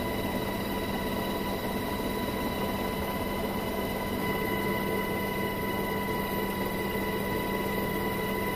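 Steady drone of a military helicopter in flight, heard from inside the cabin: rotor and engine noise with a steady high whine running through it.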